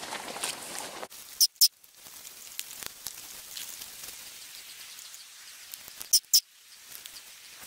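Soft rustling and light patter of footsteps through vegetation as the hunters stalk in, fading after about a second into small scattered ticks. Two pairs of short, sharp, high-pitched clicks stand out, one about a second and a half in and one near the end, each pair a fifth of a second apart.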